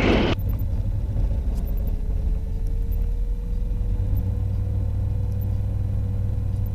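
Sling 2's Rotax four-cylinder aircraft engine running on the ground during a run-up, with a steady low rumble and a faint tone that rises a little about three seconds in and then holds. The pilots feel it is not running right and suspect cylinders two and four are not firing, a fault later traced to a sunk carburetor float flooding that side.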